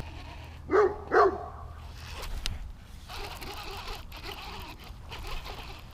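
A dog barking twice in quick succession, about a second in.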